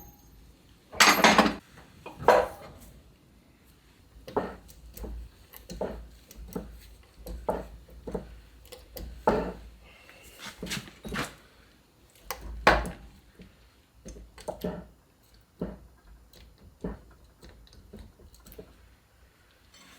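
Irregular metal clinks and knocks from work on a Land Rover Series gearbox layshaft as its bearing inner race is pressed into place; the loudest knocks come about a second in, a second later and about two-thirds of the way through.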